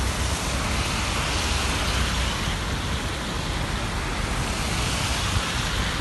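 Steady rushing hiss of muddy floodwater pouring across a road in heavy rain, mixed with vehicles driving through on the wet asphalt. A low engine rumble runs under it in the first second.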